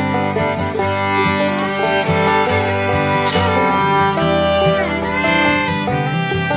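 Background music: fiddle and guitar playing an upbeat bluegrass-style tune.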